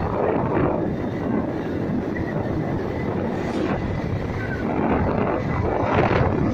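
Motorcycle running at riding speed, mixed with wind rushing over the microphone, which swells in gusts.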